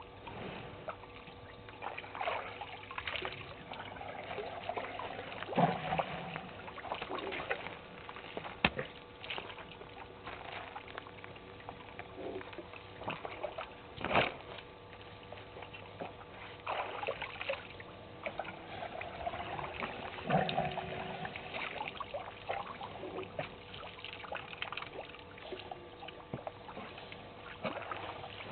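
African elephants drinking at the water's edge: irregular splashing and trickling as their trunks draw up water and let it run back, with a few sharp clicks, the loudest about halfway through.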